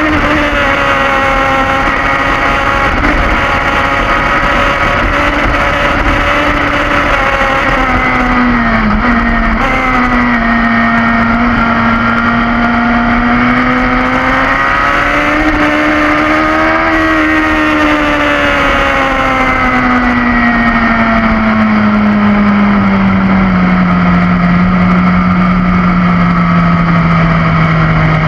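Stock BMW S1000RR's inline-four engine running on track, heard onboard with wind rush. Its note dips and climbs gently through the bends, then falls steadily over the last several seconds as the bike slows.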